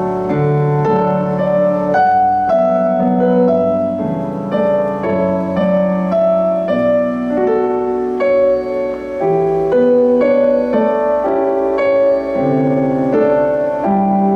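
Solo keyboard playing in a piano sound: a slow melody over sustained chords that change about every half second to second.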